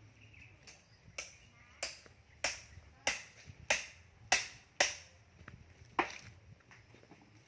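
Hammer blows: a run of about nine sharp strikes, a little over half a second apart, loudest in the middle of the run, with one last strike about six seconds in.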